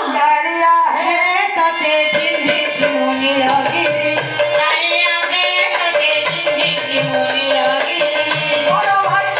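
Live Odia pala devotional music: a woman sings a melody, accompanied by an electronic keyboard and a hand drum keeping a steady beat.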